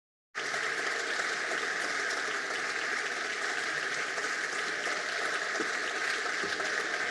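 Audience applauding, starting abruptly a moment in and keeping up steadily.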